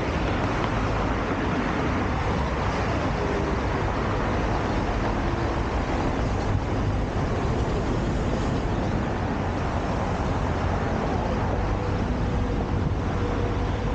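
Steady road traffic noise, an even, unbroken deep wash of sound with no distinct events standing out.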